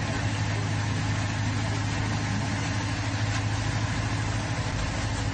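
Boat engine running steadily with a low drone, under a constant hiss.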